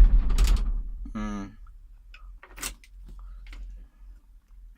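Backhoe's diesel engine shutting off at the key: it runs, then winds down and stops about a second and a half in. Only faint clicks follow.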